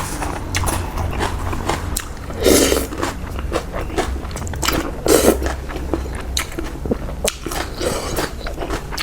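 Close-up eating sounds: a person biting and chewing a bowl of spicy pork noodle soup with fresh chilies, with many small wet clicks and two louder, longer sounds about two and a half and five seconds in, over a steady low hum.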